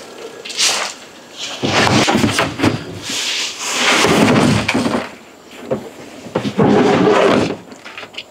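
Shovel scraping and scooping old bedding out of a plastic brooder tub (a cut-down IBC tote), in several separate noisy scrapes with knocks between them.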